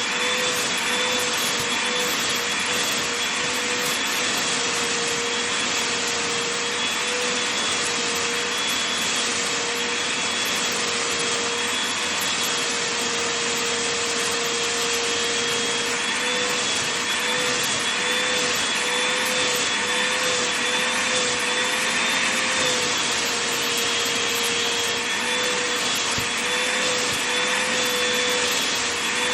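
Vacuum cleaner running steadily over a blanket, with a constant whine whose pitch wavers slightly now and then.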